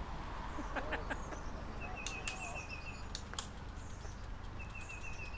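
A bird singing a quick run of about eight short, even notes, repeated every few seconds, over a steady low outdoor rumble, with a few faint clicks midway.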